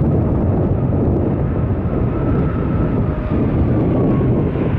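Airliner passing with a steady low engine rumble and a faint high whine that drifts down in pitch toward the end.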